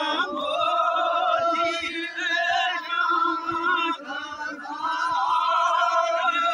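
A man's voice singing a devotional chant in long, wavering held notes, with a short break about four seconds in.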